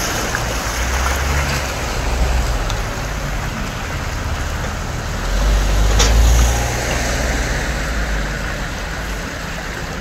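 Wind buffeting the microphone: an uneven low rumble over a hiss, swelling in a gust about five to six seconds in, with a single click near six seconds.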